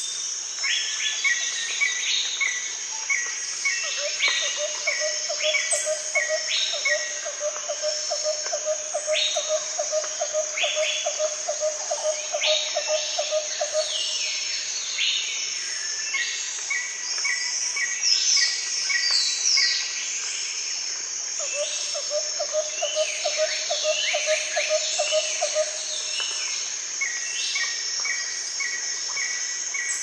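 Jungle ambience: a steady high insect drone under repeated bird calls, short downward-sweeping notes and runs of quick chirps. A low, rapid trill comes in about four seconds in and runs for about ten seconds, then returns for about five seconds past the middle.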